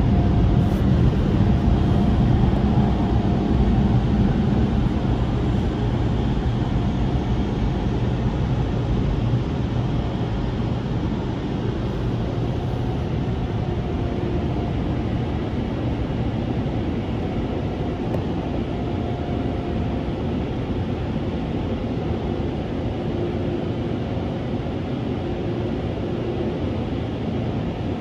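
Touchless car-wash air dryer blowers running, a steady rush of air heard from inside the car, a little louder for the first nine seconds or so and then even.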